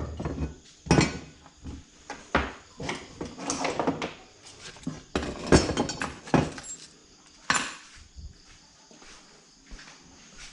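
Irregular clinks, knocks and rattles of metal motorcycle parts and hand tools being handled and fitted during reassembly, a dozen or so sharp strikes at uneven intervals.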